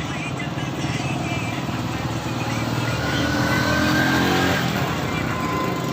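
A motor vehicle engine running over steady traffic noise, growing louder to a peak about four seconds in and then fading.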